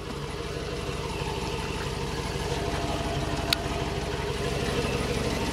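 A 2004 Chevy Tahoe's V8 running steadily, heard inside the cabin, with no whine from the rear end: the differential's worn pinion bearing has been replaced and the noise is fixed. A brief click about three and a half seconds in.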